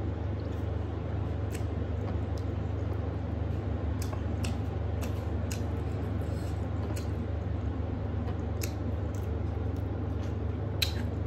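A person eating rice and curry by hand: scattered wet clicks and squishes of chewing and of fingers working the food, with a sharper click near the end, over a steady low hum.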